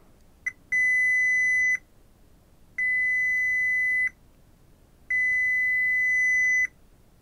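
Fluke digital multimeter's continuity beeper: a short blip, then three steady high-pitched beeps of about a second to a second and a half each, with pauses between. Each beep marks a dead short across an amplifier output transistor's pins, the transistors being shorted.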